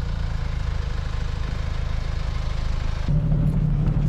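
Car engine idling steadily. About three seconds in it cuts abruptly to a different, slightly louder steady hum.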